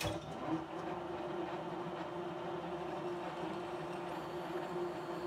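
Metal lathe switched on: the motor and four-jaw chuck start at once and run at a steady speed, a steady hum with one clear tone.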